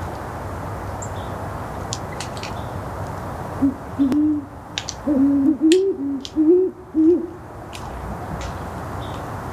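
Great horned owl hooting: a rhythmic series of about six deep hoots, starting about three and a half seconds in and ending about two seconds before the end, over a steady background hiss.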